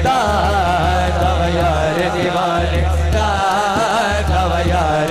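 Male naat singer singing a drawn-out, ornamented devotional line through a microphone and PA, over a low drone that comes and goes in blocks about a second long.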